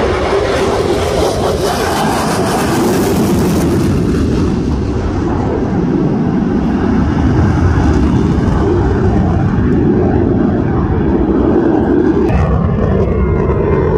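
F-16 fighter jet's engine noise as it makes a low pass and climbs away. It is loud and steady, harshest and brightest in the first few seconds, then settling into a deep rumble.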